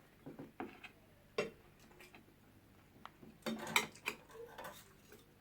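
Cutlery clinking and scraping against a plate while eating: a few scattered clicks, then a busier run of clatter about three and a half seconds in.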